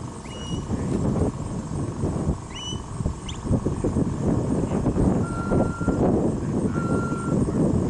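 A handler's stock whistle sounding short commands to a working border collie: a quick rising note held briefly, two more like it, then two longer flat notes. These sound under a loud, low, uneven rumble.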